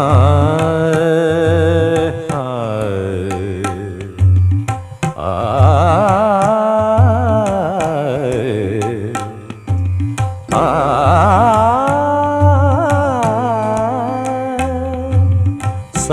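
Carnatic-style film song music: long, heavily ornamented melodic phrases gliding up and down over low drum strokes, in three phrases with short breaks about two and ten seconds in.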